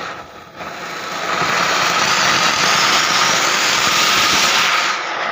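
Diwali anaar (flower-pot fountain firework) burning, spraying sparks with a loud, steady hiss that builds over the first second or two and then holds.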